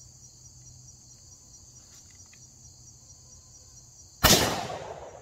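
A single shot from a Stevens 301 single-shot .410 shotgun loaded with a 3-inch shell: a sudden loud blast about four seconds in that rings and fades over most of a second. Before it, a steady high insect chorus.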